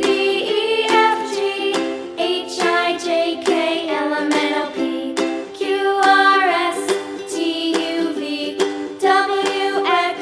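Children's background music: a melody over steadily strummed plucked strings.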